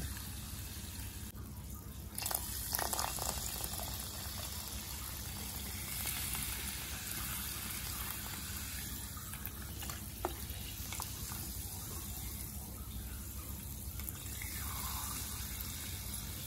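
Soda water pouring from a can into a plastic tub of raw crabs, a steady splashing, filling sound, briefly quieter about two seconds in.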